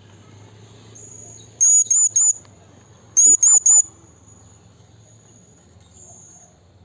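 Blue-crowned hanging parrot (serindit) calling: two bursts of three sharp, very high-pitched squeaky notes, about a second and a half apart, with faint thin high calls in between.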